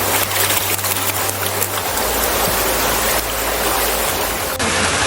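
Steady rush of running water, a loud even wash of noise, with an abrupt change in its sound near the end.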